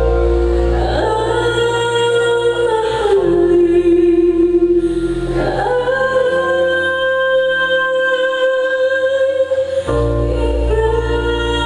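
A woman singing a slow song into a handheld microphone, holding long notes over sustained instrumental chords and a steady bass line, the chords changing every few seconds.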